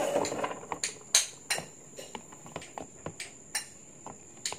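A plastic spatula clicking and knocking against a plastic tub while stirring a thick, creamy fruit salad: a run of irregular sharp clicks, the loudest a little over a second in.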